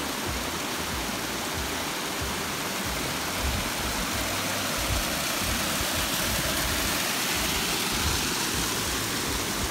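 Small waterfall and creek running over granite boulders: a steady, even rush of water.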